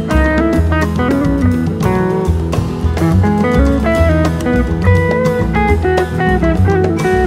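Instrumental background music: guitar over bass and drums, with a steady beat.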